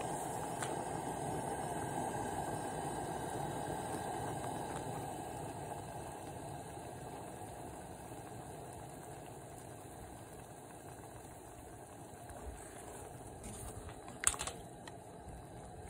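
Seafood and ravioli in a creamy broth simmering in a cast iron skillet on a Coleman camp stove, a steady bubbling and burner hiss that gradually grows quieter. A short sharp knock comes near the end.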